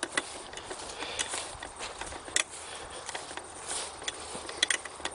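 Footsteps of someone walking, heard as irregular light steps and clicks over a faint steady hiss.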